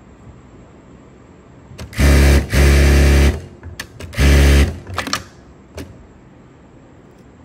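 Industrial single-needle sewing machine running at speed in three short bursts, starting about two seconds in, with a few light clicks between and after the bursts.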